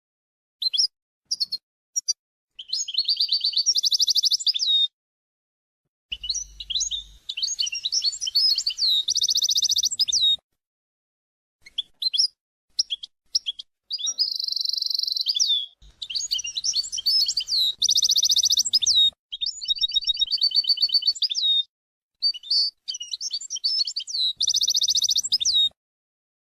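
A bird sings in repeated phrases of quick chirps and rapid trills, each phrase lasting a few seconds with short pauses between.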